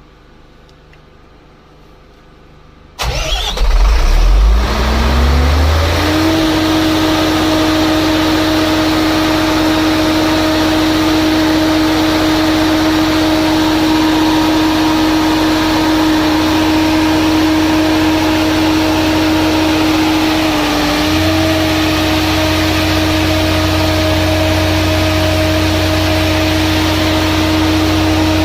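Volvo diesel engine of a 150 kVA containerized generator starting automatically when mains voltage is lost. It cranks and fires about three seconds in, runs up to speed with a rising whine over the next few seconds, then runs steadily. Around twenty seconds in, its pitch dips briefly and recovers.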